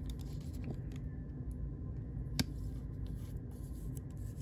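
A trading card being slid into a rigid plastic top loader: faint plastic-on-card rubbing and small clicks, with one sharper click about two and a half seconds in, over a low steady room hum.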